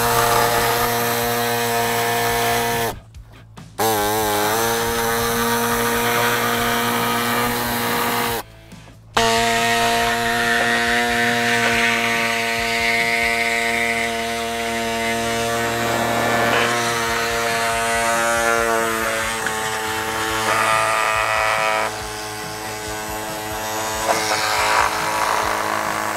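Pneumatic reciprocating saw (air saber saw) running as it cuts through a black plastic grille bracket. It gives a steady whine that stops twice for a moment, about three seconds in and about eight and a half seconds in, and wavers in pitch as the blade works through the plastic.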